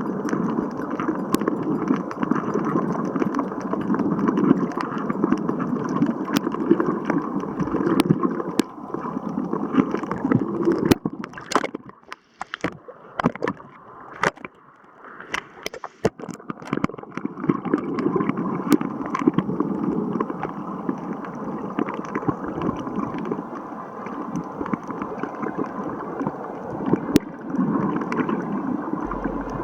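Sea water sloshing and gurgling around the camera as a person swims, with scattered sharp clicks. The sound drops away for a few seconds about halfway through, then returns.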